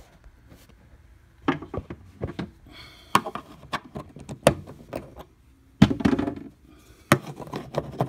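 Metal pry tool working plastic push-button trim fasteners loose from a vehicle's cargo-area trim panel: a series of sharp plastic clicks, snaps and scrapes, with a louder cluster about three-quarters of the way through.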